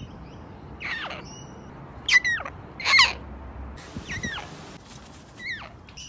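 Sulphur-crested cockatoo giving a series of about five short calls, each sliding steeply down in pitch, about a second apart; the two in the middle are the loudest.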